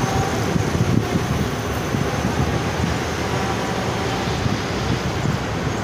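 Steady road traffic noise from cars and a motorcycle driving along a busy multi-lane street below, a continuous even hum without distinct events.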